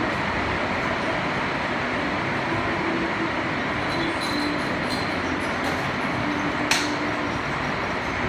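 Heavy rain falling steadily, an even hiss, with one sharp tap of a drop striking something close about two-thirds of the way through.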